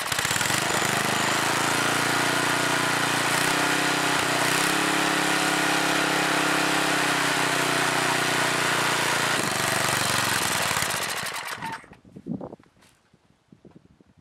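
Rototiller's swapped-in 8 hp snowblower engine running steadily at high speed, with a brief change in pitch about four seconds in. The sound cuts off a couple of seconds before the end.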